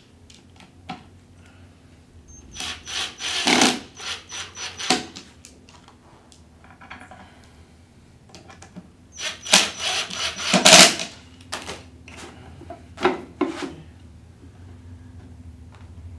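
Cordless impact driver driving screws into a bamboo drawer panel, in two runs of about two seconds each, then a couple of brief touches of the trigger.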